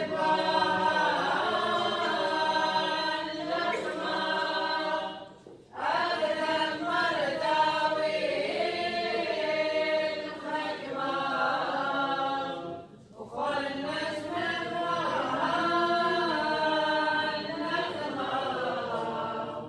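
Church choir singing a cappella liturgical chant in long, sustained phrases, with brief pauses about five and a half and thirteen seconds in.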